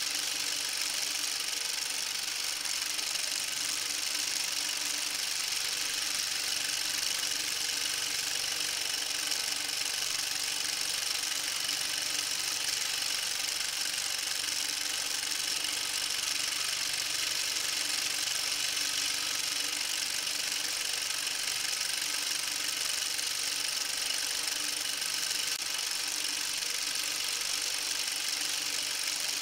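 A small machine running steadily: an even mechanical whir and hiss with a few faint steady tones, unchanging throughout.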